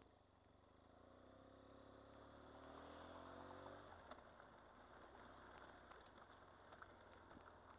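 Motorcycle engine, faint, rising steadily in pitch as the bike accelerates, then breaking off about four seconds in, over a steady low road and wind hum.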